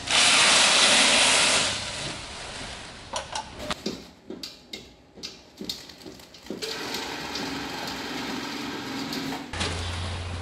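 Bagging scale dropping a charge of dried biogas-digestate fertilizer into a paper sack: a loud rushing pour for about two seconds, then scattered knocks and a steady machine running.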